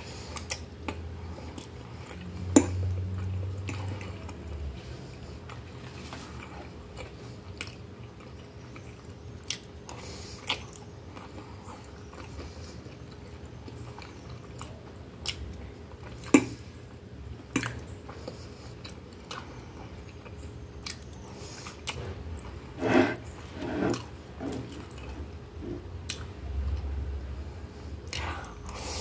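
Close-up eating sounds of a person chewing soft, cheesy instant noodles with sausage, with wet mouth noises throughout. A few sharp clinks of a metal fork against the glass plate stand out, the loudest about two and a half seconds in and again around the middle, with a cluster near the end.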